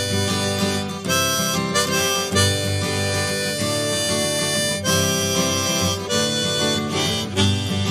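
Background music led by a harmonica over guitar, in a bluesy style.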